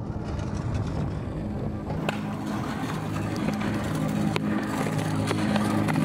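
Stunt scooter wheels rolling over rough asphalt, with a few sharp clacks, under a low steady hum of several tones.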